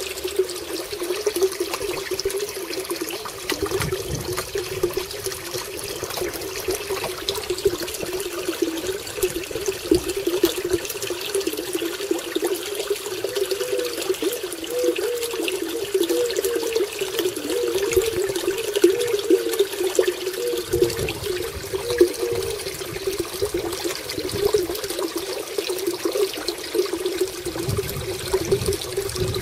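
Water from a pipe outlet pouring into a koi pond, splashing and gurgling steadily with a wavering, bubbling tone.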